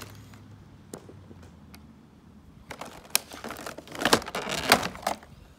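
Clear plastic blister packaging crinkling and clicking as it is handled. A few faint clicks come first, then from about two and a half seconds in a dense, louder run of crackling with several sharp snaps.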